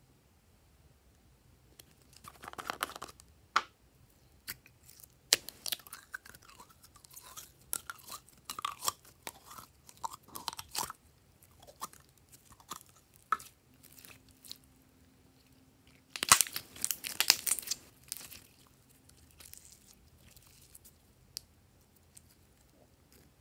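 Handling of a plastic slime squeeze bottle and thick slime: scattered clicks of the bottle and its cap, and short bursts of sticky squishing as the slime is squeezed out and worked by hand, loudest in a cluster about two-thirds of the way through.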